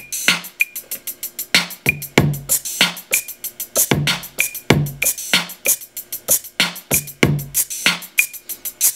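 Dirty-south style drum-machine loop playing from a Native Instruments Maschine: a steady, repeating pattern of deep kicks and sharp higher hits, with shaker hits being played in on the pads.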